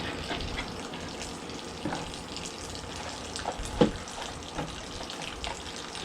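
Water trickling and splashing: a steady crackly hiss with scattered small drips and clicks.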